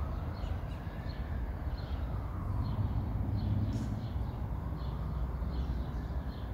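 Small birds chirping, short high notes repeated every half second or so, over a steady low rumble.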